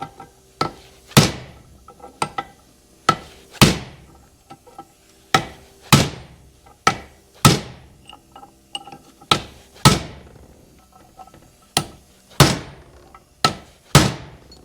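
Hammer blows, metal on metal, roughly one a second with a short ring after each strike. They are driving a stuck part out of an Oliver 77 tractor's PTO assembly, and the part is shifting a little.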